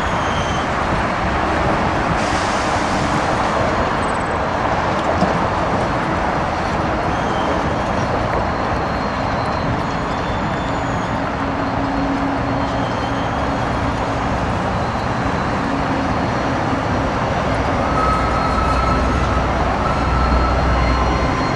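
Pacific National NR class diesel-electric locomotive working under load as it hauls a container freight train towards the listener, a steady engine and rail rumble whose low end grows stronger over the last few seconds.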